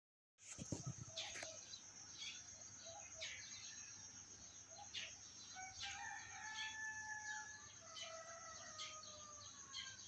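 A rooster crowing, its long drawn-out crows filling the second half. Short bird chirps come about once a second over a steady high-pitched hum.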